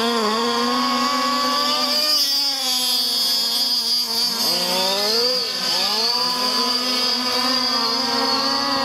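Small 30.5cc two-stroke engine of a 1/5-scale RC desert trophy truck with a tuned power pipe, driving on dirt. Its note keeps rising and falling as the throttle is opened and eased through the corners.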